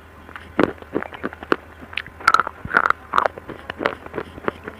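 Close-miked crunching of slate sticks being bitten and chewed: an irregular run of sharp, brittle crunches and snaps.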